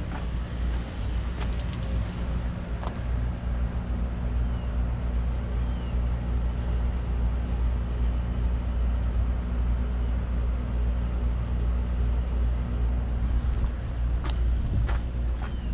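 Trane Odyssey heat pump outdoor unit running through a defrost cycle: a steady low hum with a few faint ticks.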